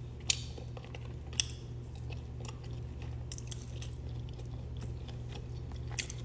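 Close-up chewing and biting on rotisserie chicken, wet mouth clicks with a few sharp louder smacks, over a steady low hum.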